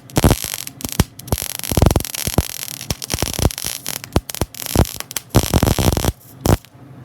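Electric arc welding: the arc crackling and hissing in irregular spurts of sharp clicks, with short breaks between runs and a last short burst near the end.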